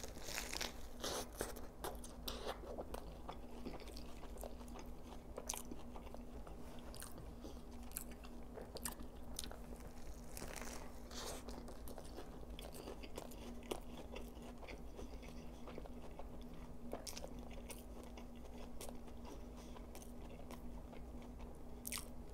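Close-up biting and chewing of a Double Quarter Pounder dressed with fresh lettuce, tomato and Big Mac sauce: wet mouth sounds with crisp crunches from the lettuce, thickest at the first bite and again about ten seconds in. A faint steady hum runs underneath.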